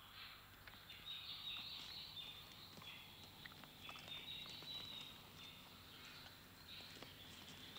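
Faint birdsong, a steady run of high chirping calls, with soft scattered steps of horses walking on the forest floor.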